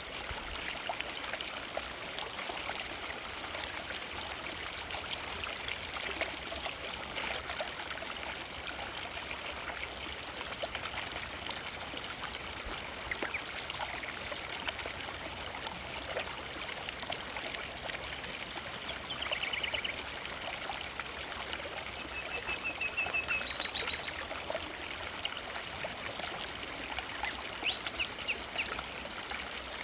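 A forest river flowing steadily with an even rushing and trickling of water. A few short bird calls and quick trills come through in the second half.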